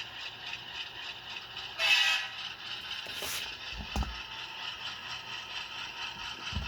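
Kato HO P42 model locomotive running on its LokSound V5 sound decoder, the diesel sound coming thin and tinny through small 23mm speakers, with motor and gear noise. A brief loud burst of noise about two seconds in and a low knock around four seconds.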